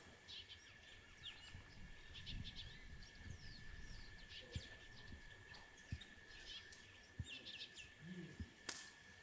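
Faint outdoor ambience of small birds chirping in short repeated bursts, over a thin steady high whine, with a few soft low knocks and one sharp click near the end.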